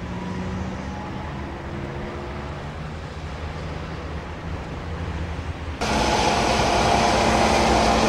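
A Duewag tram approaching on curved track: a steady low hum with faint whining tones that drift in pitch. About six seconds in it cuts suddenly to much louder, dense traffic noise.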